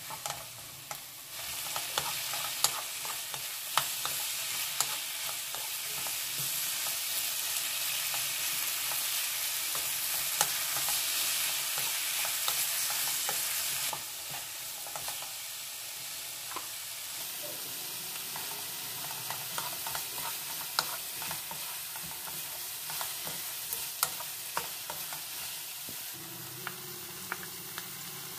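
Zucchini, onion and clams sizzling in oil in a nonstick wok, stirred with a wooden spoon that knocks and scrapes against the pan in short clicks. The sizzle comes up about a second in and turns quieter about halfway through.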